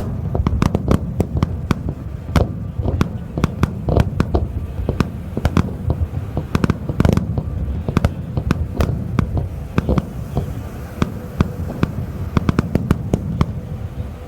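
Aerial fireworks bursting in a rapid barrage: many sharp bangs and crackles, several a second, over a steady low rumble.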